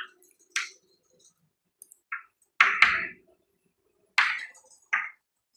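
Chalk writing on a chalkboard: about six short strokes and taps at irregular intervals.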